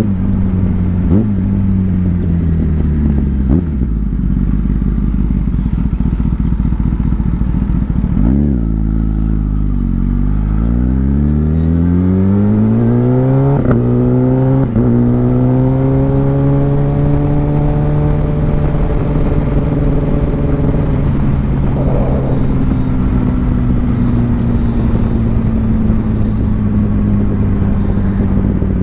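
Kawasaki ZX-10R's inline-four engine under way: revs falling, then climbing over several seconds with two brief breaks in the note about halfway through, typical of quick-shifter upshifts, before settling to a steady cruise.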